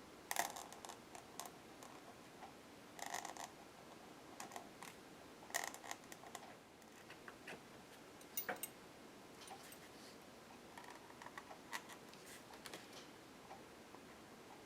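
Faint, scattered scratches and taps of a black Stabilo drawing on a paper page, in short irregular strokes.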